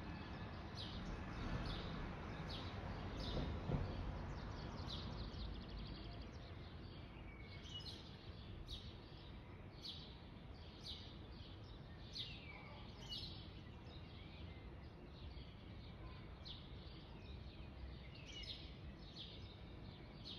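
Small birds chirping over and over, short high notes about twice a second, over a low steady background rumble that is a little louder in the first few seconds.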